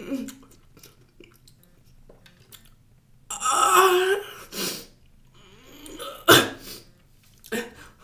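A man's wordless vocal reactions to the sour taste of a lemon: sharp breaths and a loud strained cry about three seconds in, with shorter outbursts after it. A sharp click or thump a little after six seconds is the loudest moment.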